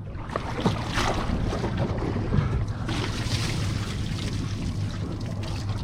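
Wind buffeting the microphone over water lapping against a small boat's hull, a steady rushing noise with a low rumble that grows brighter about three seconds in.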